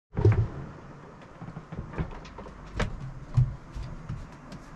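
Scattered knocks, clatters and clicks of cookware and cupboards in a sailboat's galley, the loudest knocks just after the start and about three and a half seconds in.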